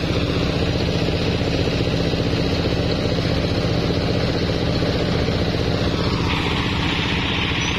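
Single-cylinder diesel engine running steadily at a fast even throb, belt-driving a rice threshing machine as rice sheaves are fed in. About six seconds in, a higher rushing hiss joins the engine.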